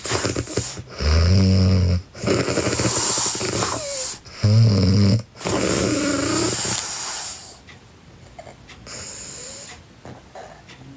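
A girl snoring in her sleep: two loud, low buzzing snores about three seconds apart, each followed by a long breathy exhale. The breathing is softer in the last few seconds.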